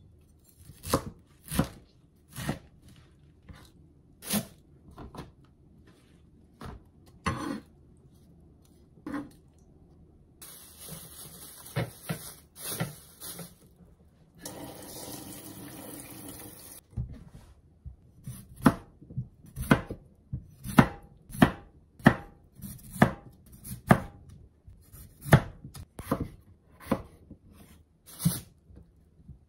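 Kitchen knife chopping on a mango-wood cutting board: single sharp knocks, sparse at first, then about one and a half strokes a second as potatoes are cut into pieces. In the middle, a few seconds of plastic bag crinkling take the place of the chopping.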